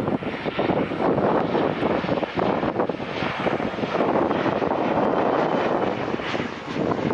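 Jet noise from a Boeing 737-800's CFM56 turbofans at approach power as the airliner passes low overhead on final approach. The noise is steady, with gusty wind on the microphone mixed in.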